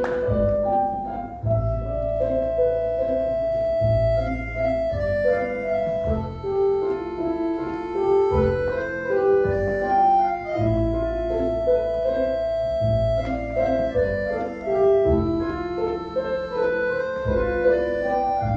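Instrumental tango music: held melody notes over a deep bass pulse that recurs every second or two.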